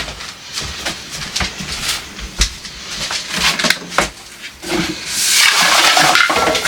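Kitchen cleanup handling noises: scattered knocks and clatter of items being picked up and moved, then about five seconds in a louder, steady hissing rush begins and carries on.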